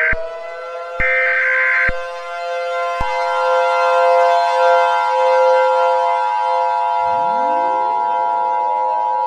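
A civil defense siren winds up and holds a steady wail, with the harsh data-burst screeches of an EAS SAME header over it during the first two seconds. About three seconds in, a higher steady tone joins, and near the end more siren wind-ups begin rising under it.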